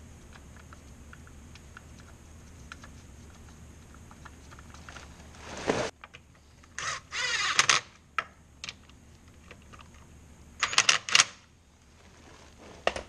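Cordless DeWalt driver run in three short bursts, driving in the fasteners of the cover over a Hydro-Gear transaxle, with a wavering motor whine in the longest burst. Light clicks and rattles of the cover and bolts being handled come before the bursts.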